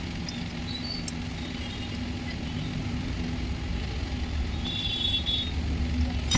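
A steady low mechanical hum with a constant tone, like a motor or engine running, with a few faint high squeaks and a sharp click at the very end.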